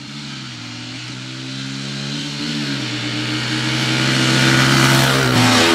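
Two small dirt bikes, an Aprilia RX 125 and a Suzuki DR-Z, accelerating flat out in a drag race, shifting up about two and three seconds in. They grow steadily louder as they approach, and the pitch drops sharply near the end as they pass by.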